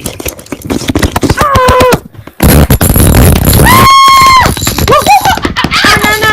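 Loud, chaotic jumble of sharp bangs and crackles, breaking off briefly about two seconds in, with a held high shriek a little later and wavering voice-like cries near the end.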